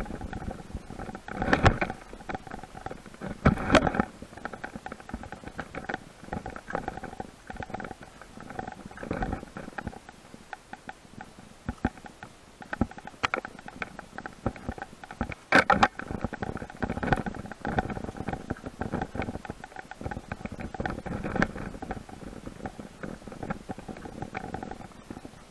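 Mountain bike rattling and clattering over a bumpy dirt trail, with tyre noise and irregular knocks from the frame and chain, and a few heavy jolts, the loudest about 16 seconds in.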